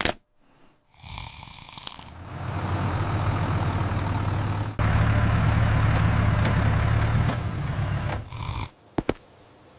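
A sleeping person's snoring: a long, low, rumbling snore drawn in over a few seconds, then let out in a second, steadier phase.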